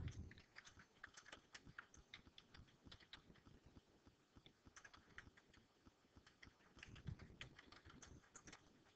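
Faint typing on a computer keyboard: a run of quick, irregular keystroke clicks.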